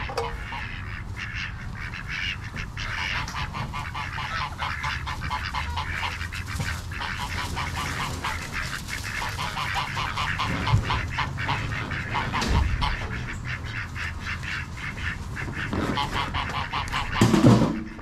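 A flock of domestic ducks quacking in a rapid, steady chatter, with one louder call near the end.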